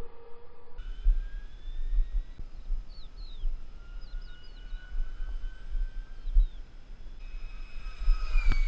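Electric ducted-fan RC model jet (a T-45/Hawk model) whining in flight, its thin whine gliding slowly in pitch, with wind buffeting the microphone and a few short bird chirps in the middle. Near the end the jet passes close and its whine swells and drops in pitch.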